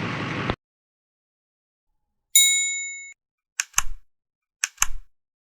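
In-car road noise cuts off abruptly about half a second in. After a silence, an edited-in sound effect of one bright ding rings out and fades over under a second, followed by two quick double clicks about a second apart.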